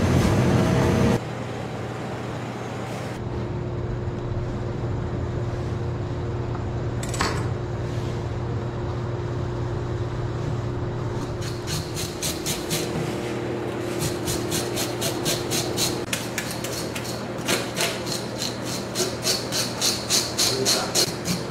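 A louder stretch of sound cuts off about a second in, leaving a steady low hum. In the second half, a fish scaler scrapes the scales off a red coral trout in a stainless steel sink, in quick runs of several strokes a second that get louder near the end.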